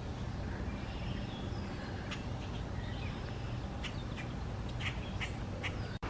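Birds calling at a lake: many short chirps and calls scattered over a steady low rumble, with a brief dropout just before the end.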